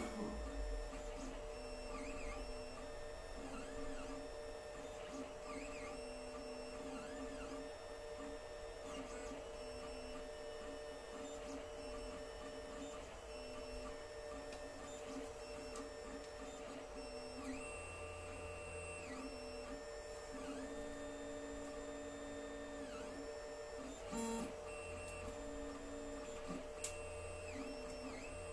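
Alfawise U10 3D printer running a print: its stepper motors whine in short tones that ramp up and down in pitch as the print head and bed move, over a steady hum. A couple of brief clicks near the end.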